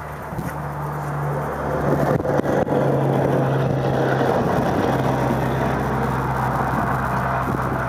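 A motor vehicle's engine running steadily with a low hum. It grows louder over the first couple of seconds, then holds, and its pitch shifts slightly about two and a half seconds in.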